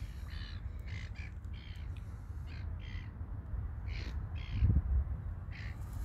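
A bird calling over and over: about nine short calls, some in pairs, over a steady low rumble. There is a louder low bump just before five seconds in.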